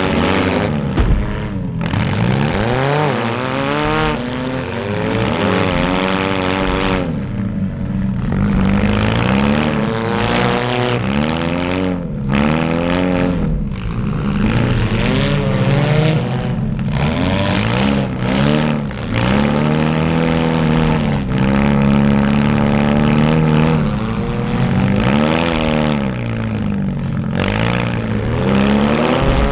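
Small demolition-derby cars' engines revving hard, with the pitch climbing and falling again and again as the drivers floor it and back off between hits.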